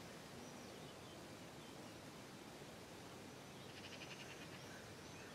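Near silence: faint outdoor background hiss, with a brief faint rapid high trill about four seconds in.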